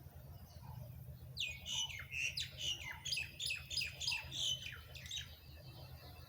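A bird calling: a quick run of about a dozen downward-sliding notes, some three a second, starting about a second and a half in and stopping about five seconds in.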